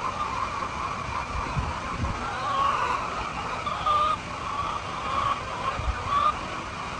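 Many hens calling and clucking over one another in a steady chorus of short, overlapping calls, with a few low thumps.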